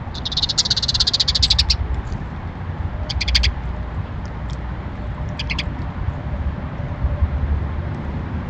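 Small songbird's rapid high trill lasting about a second and a half, followed by two short bursts of quick high chirps, over a steady low rumble.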